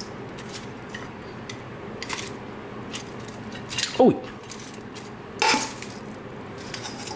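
Metal tongs clinking against a stainless steel bowl and a plate as fried chicken wings are lifted out. There are several scattered clinks, the loudest about five and a half seconds in. A man's short "Oh!" comes about four seconds in.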